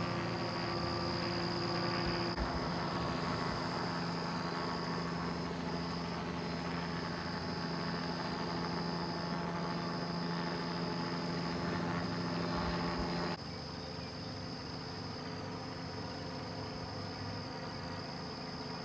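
Outdoor ambience: a steady low mechanical hum like an idling engine, with insects trilling steadily in a high pitch. The hum stops abruptly about two-thirds of the way through, and the insects carry on.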